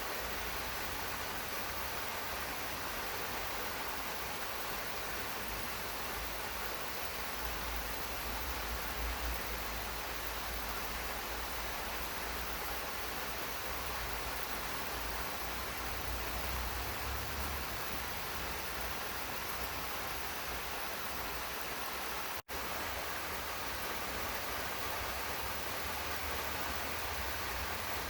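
Steady rain falling in a garden, an even hiss with a low rumble underneath. The sound cuts out for an instant about twenty-two seconds in.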